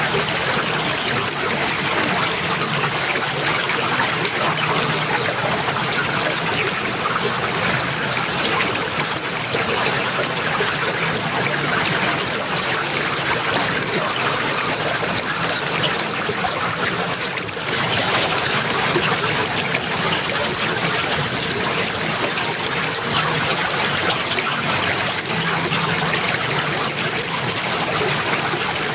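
Water running and trickling steadily, an even rushing hiss with one brief dip in level a little past halfway through.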